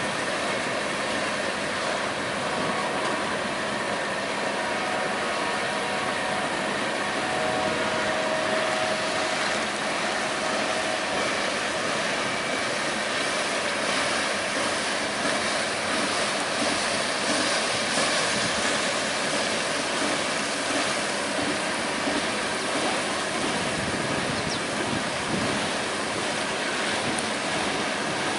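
Freight cars of a Canadian Pacific train, empty flatcars and then tank cars, rolling past over track awash in floodwater: a steady, even wash of wheel-on-rail noise.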